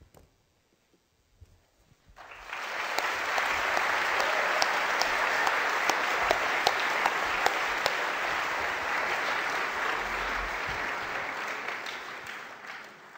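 Audience applauding: a large crowd's clapping starts about two seconds in, builds quickly, holds steady and begins to fade near the end.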